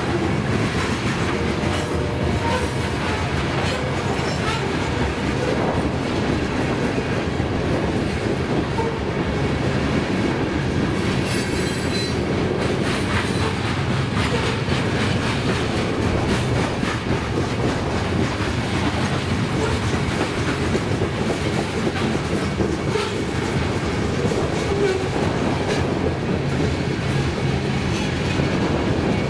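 Loaded covered hopper cars of a freight train rolling past: a steady rumble of steel wheels on the rail with a continuous clickety-clack.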